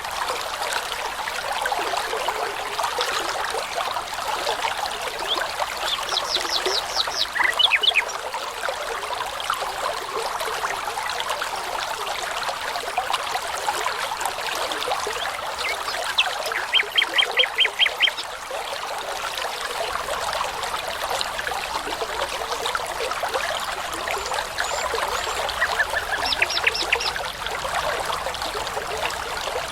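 Brook babbling steadily, with a songbird singing three short bursts of rapid repeated high notes, each about a second and a half long, spaced roughly ten seconds apart.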